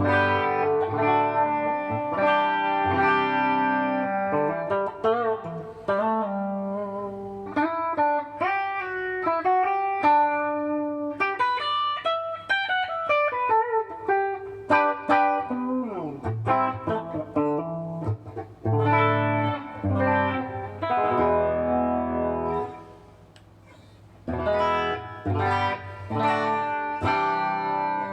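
Electric guitar with Kiesel Polarity pickups in passive mode, playing a clean tone starting on the bridge pickup: ringing chords and single notes with slides and bends. There is a short break about three-quarters of the way through.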